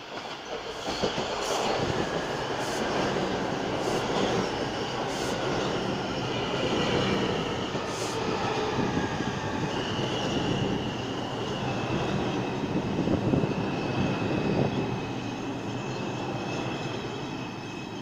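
New York City subway train running into the station alongside the platform: a loud, steady rumble of steel wheels on rail, with sharp clacks as the wheels cross rail joints during the first half and a high, steady wheel squeal from about six seconds in.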